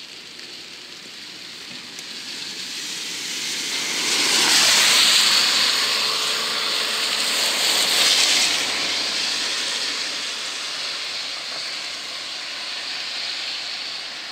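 A road vehicle passing close by on a wet road: tyre hiss swells over a few seconds, is loudest about four to eight seconds in, then slowly fades, over the steady hiss of rain.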